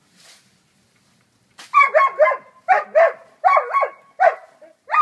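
German shepherd barking excitedly at hedge trimming. After a quiet first second and a half, it breaks into a rapid string of loud barks, about two to three a second.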